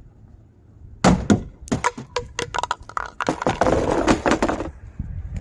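Plastic under-cover at the rear of a Honda Fit being pried and pulled loose from its push-in clips: a quick run of sharp cracks and snaps starting about a second in, then a longer stretch of scraping, rattling plastic.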